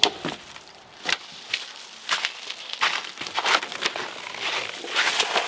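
Irregular rustling and crunching close to the microphone: gear and the camera being handled and moved about, with steps in between.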